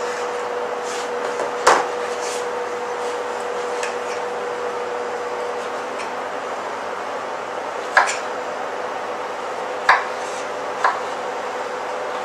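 Kitchen knives cutting fruit on a plastic cutting board: a few sharp knocks of blade on board, about 2 s in and then three more around 8 to 11 s in, over a steady background hum.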